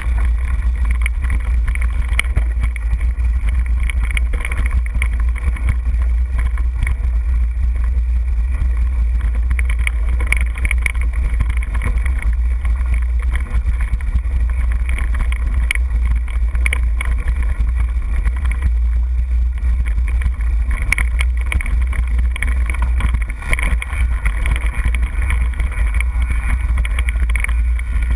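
Steady low wind rumble on a GoPro microphone while riding a Trek Superfly 29er mountain bike over rocky singletrack, with frequent small knocks and rattles from the bike jolting over rocks.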